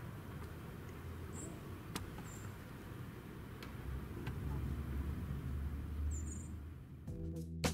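Quiet outdoor background: a steady low rumble with a few faint clicks and three short high chirps. Music starts near the end.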